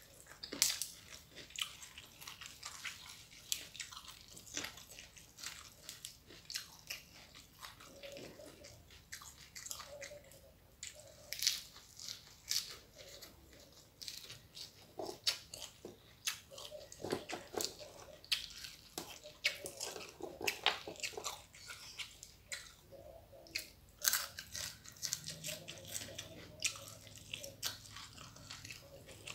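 Close-up eating sounds: irregular crisp crunches and wet chewing as crispy dry-fried salted fish and raw young jengkol are chewed with rice.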